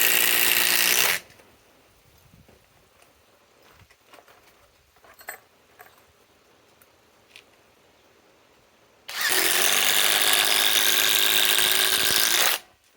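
Cordless compact impact driver driving a long structural screw into wood. It runs, stops about a second in, and runs again for about three and a half seconds near the end. In between there are a few faint clicks and handling sounds.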